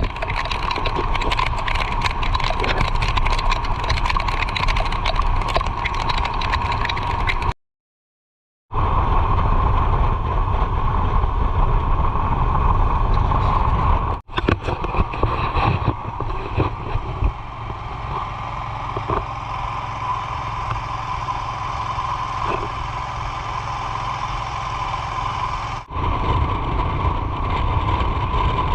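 Vehicle running on the road with wind rushing over the microphone, a steady drone. It is broken by abrupt edit cuts, including about a second of dead silence near the eight-second mark.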